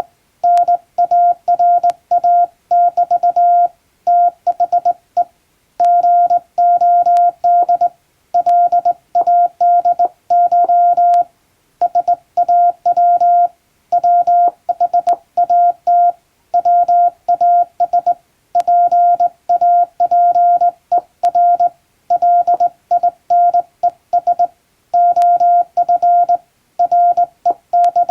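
Morse code sent by hand on a straight key, heard as a single steady beep keyed on and off in dots and dashes, with short pauses between characters and words. It is English-text practice sending.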